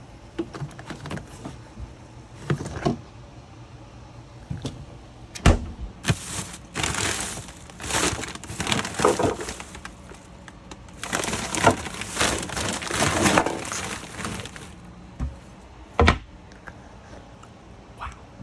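Rustling and crinkling handling noise, with scattered sharp knocks and cracks, the loudest knocks about five and sixteen seconds in.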